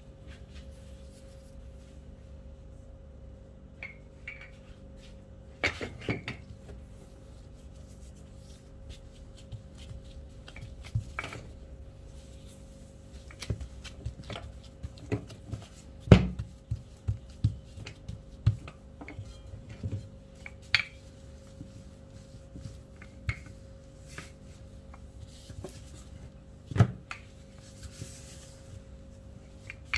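Dough being rolled out with a wooden rolling pin on a plastic-covered table: scattered knocks and taps as the pin and gloved hands hit the tabletop, with two louder knocks about halfway and near the end.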